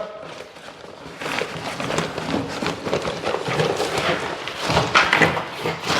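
Setting-type plaster filler powder (Gyprock Easy Fill) being poured from its bag into a bucket of water: an irregular patter of taps, scrapes and rustles that starts about a second in.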